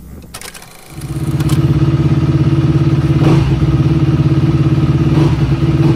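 Some clattering, then about a second in a motocross dirt bike engine comes in loud and runs steadily.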